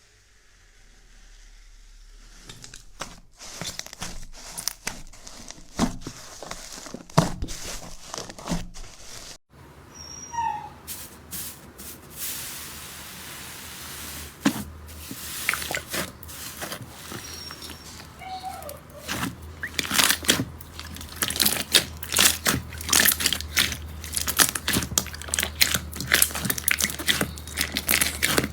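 Slime being squeezed and pressed by hand, giving sticky clicks and crackling pops. The pops are sparse at first, then after a cut they thicken into dense crackling over the last third, with a couple of faint short squeaks along the way.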